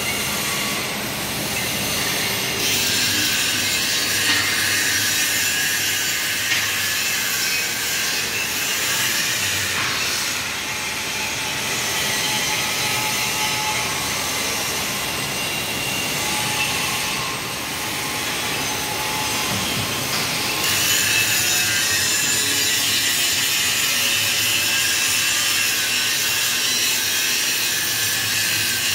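Inclined screw conveyor running, its motor-driven steel screw turning inside the tube. It makes a steady, mostly high-pitched rushing noise that grows louder a couple of seconds in, eases for a while in the middle, and swells again about twenty seconds in.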